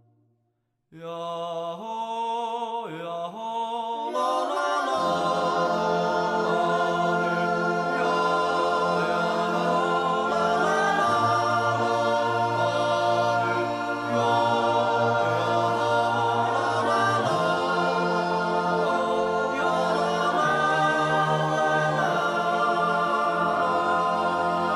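Boys' choir singing an Appenzell Zäuerli, a wordless natural yodel without accompaniment. A solo voice opens about a second in, and the choir joins with a held chord about four seconds in.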